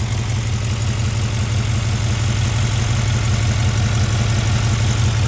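Audi S8's twin-turbo V8 idling steadily, fitted with catless downpipes.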